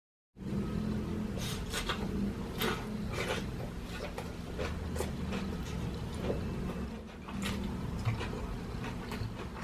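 Close-miked eating: irregular wet mouth clicks and smacks of chewing, over a steady low hum.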